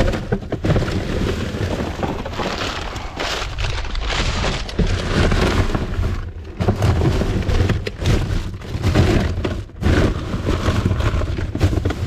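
Bagged rubbish and loose litter rustling and crackling continuously as it is shifted around by hand in a dumpster, with a heavy low rumble of handling noise.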